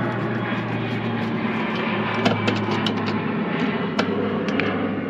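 Steady low mechanical hum with scattered sharp clicks and ticks, as the T15 Torx screws holding the van's tail light housing are worked loose with a hand tool.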